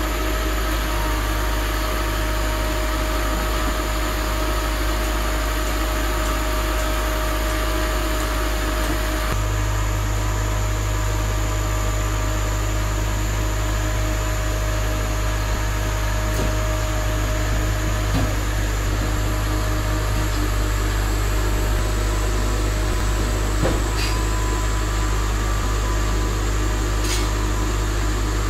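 Kale harvester machinery running with a steady low drone and mechanical hum, its tone shifting slightly about nine seconds in, with a few light clicks from the crate-handling and conveyor parts.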